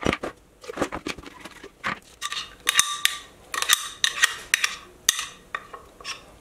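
Metal spoon scraping and knocking against the inside of a glass blender jar, with a series of sharp clinks, several of which ring briefly, as thick sweet potato purée is scraped out into a bowl.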